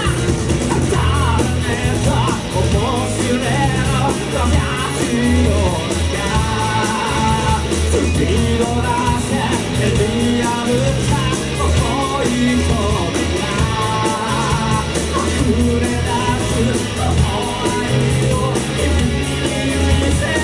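A rock band playing live, with a singer over electric guitars and drums, heard loud and full from within the crowd in a small club.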